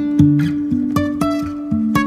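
Background music led by an acoustic guitar, with plucked notes over a long held low note.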